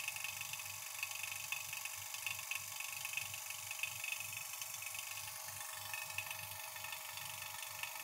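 Electric rotary vacuum pump running steadily with a fast flutter, pulling a vacuum on a refrigerator's refrigerant circuit before it is charged with Freon.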